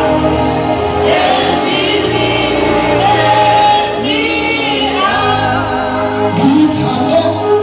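Live gospel music: singing over steady instrumental backing.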